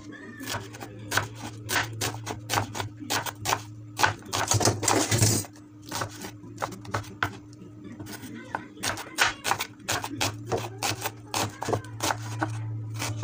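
Large kitchen knife slicing an onion on a wooden chopping board: a run of sharp, irregular knocks of the blade against the board, several a second, with a denser flurry about four to five seconds in. A steady low hum underneath.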